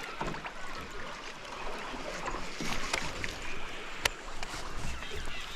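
Water sloshing and light knocks around a small boat on a river, with a sharp click about four seconds in.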